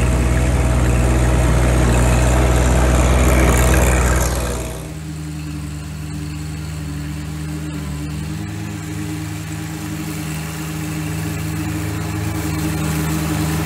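John Deere 1025R compact tractor's three-cylinder diesel engine running steadily while its 54-inch mid-mount mower deck cuts tall grass. About five seconds in the sound drops suddenly to a quieter, more distant level, then grows louder again near the end as the tractor comes closer.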